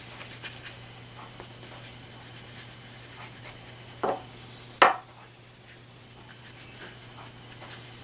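Faint soft taps of a paintbrush dabbing paint onto paper over a steady electrical hum, with two short, sharp, louder sounds about four and five seconds in, the second the loudest.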